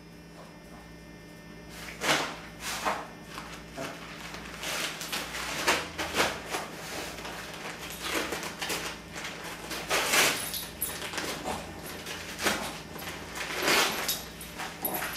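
A Boston Terrier rustling and tearing at Christmas wrapping paper, in irregular bursts of crinkling that begin about two seconds in, the loudest near two, ten and fourteen seconds.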